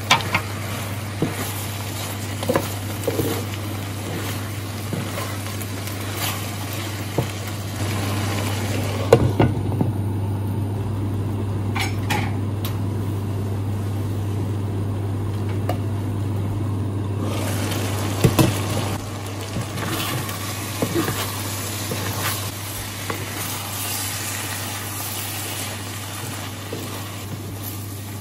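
Vegetables and sliced sausage sizzling in a frying pan, stirred with a wooden spatula that scrapes and taps the pan, over a steady low hum. About nine seconds in a glass lid goes on with a clink and the sizzle turns muffled; some eight seconds later the lid comes off with another clink and the sizzle is bright again.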